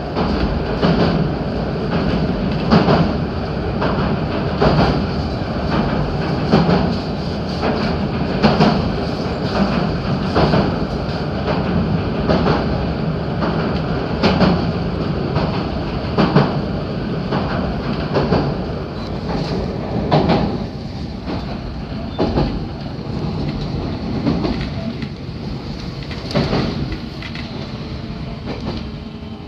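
Interior running noise of a JR 313 series electric train: a steady rumble with the wheels clicking over rail joints about every two seconds. It grows quieter over the last third.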